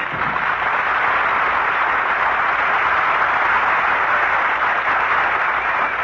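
Studio audience applauding steadily, starting right as a band's music ends.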